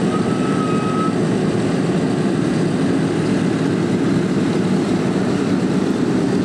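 Four-engine WWII bombers' radial piston engines running steadily at idle, a dense, even roar. A short thin whistling tone sounds briefly in the first second.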